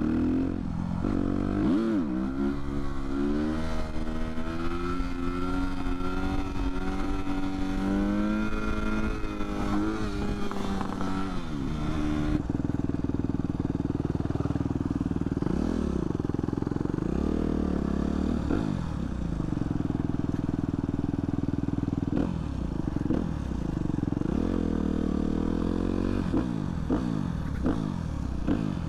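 Motorcycle engine running under way, its pitch climbing and dropping repeatedly as the rider accelerates and shifts. The sound changes abruptly about twelve seconds in.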